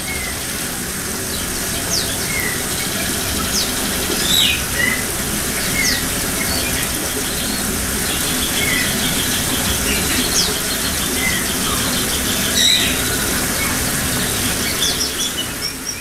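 Small songbirds in an aviary chirping and calling with short high notes, some sliding up or down, and a fast trill about eight seconds in and again near the end, over a loud steady hiss.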